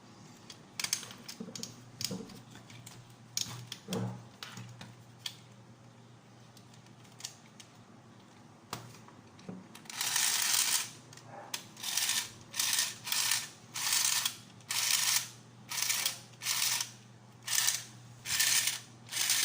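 Small clicks and taps on the plastic parts of a toy horse-race game's gear mechanism. About halfway through, its small motor and gear train start running with a rhythmic ratcheting clatter that repeats steadily, under two bursts a second, as the freed gear turns.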